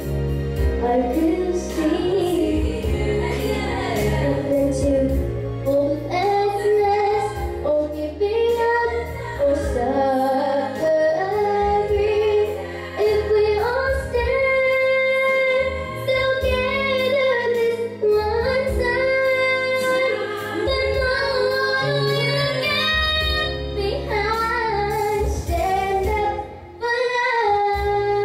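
A young girl singing a ballad into a handheld microphone over an instrumental accompaniment, in sustained sung phrases with a steady low bass line underneath.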